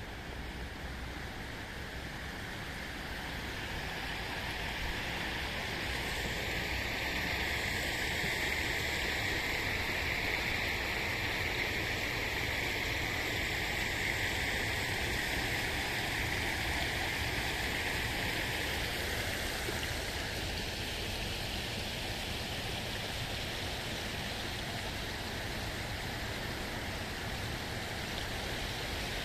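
Water splashing down a small rock cascade into a garden pond: a steady rush of falling water that grows louder a few seconds in and eases off again later.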